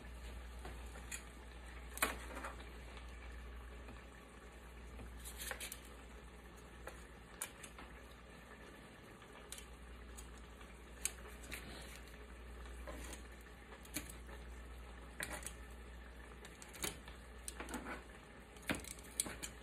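Metal tongs clicking and scraping faintly against a metal sheet pan as fish steaks are turned over, in scattered clicks over a low steady hum.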